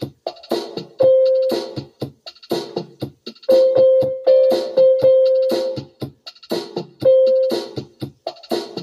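Electronic keyboard music over a steady drum-machine beat: chords played in time with the beat, and a single high note held out three times.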